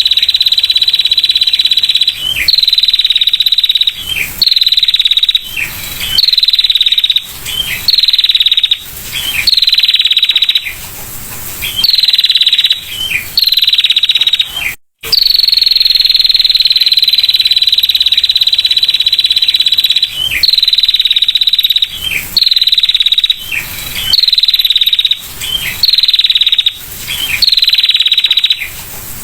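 Female prinia (prenjak) giving its rapid, buzzing 'ngetir' trill: a high rattle held for about a second at a time, each ending in a short falling note, repeated every couple of seconds. A brief break comes about halfway, followed by one longer trill of about four seconds.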